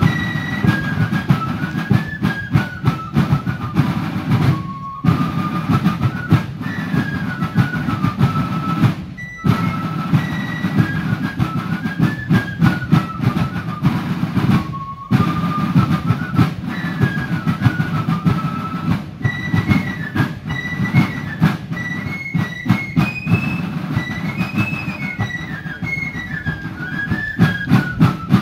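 Fife and drum corps playing a march: the fifes play a high melody in unison over rapid snare drum strokes and rolls, with brief pauses between phrases.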